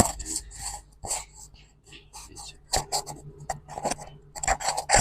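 Microphone handling noise: irregular knocks, clicks and rustles as the microphone is moved up to the speaker, over a low steady hum.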